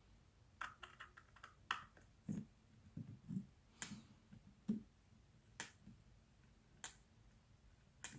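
Faint, irregular clicks and light taps of a small magnetic Phillips screwdriver on the screws and metal shield plate over an iPhone 7 Plus's display connectors, as the screws are backed out.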